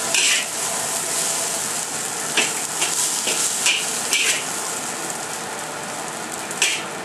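Fried rice sizzling in a hot wok with a steady hiss, while a long-handled wok utensil scrapes and knocks against the pan several times as the rice is stirred and scooped out.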